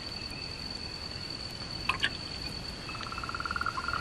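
Night forest ambience: a steady, high cricket trill throughout, with two small water drips or splashes about halfway through as the tree frog wets its eggs. About three seconds in, a tree frog's rapid pulsed call starts.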